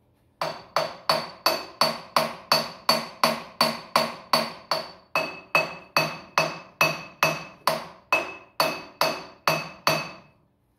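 Hammer blows on metal at a Ford 7610 tractor's engine, struck steadily about two and a half times a second. Each blow gives a sharp clank with a ringing tone, and a second, lower ring joins about halfway through.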